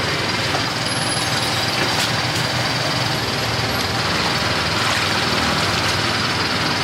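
Steady street din with a continuous engine rumble from nearby traffic.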